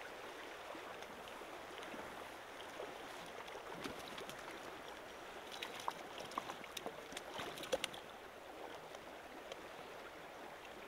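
Shallow stream water rushing steadily, with a run of small splashes about halfway through as a brook trout is landed by hand in the shallows.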